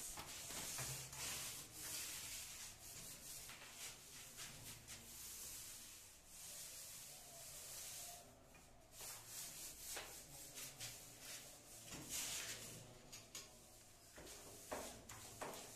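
Paint roller rolling paint onto a ceiling: faint, repeated rubbing strokes.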